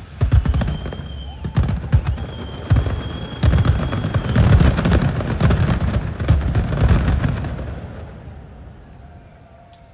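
Fireworks display: a dense run of bangs, crackling and deep booms, with a steady high whistle heard twice in the first half. The barrage thins and fades away over the last two seconds or so.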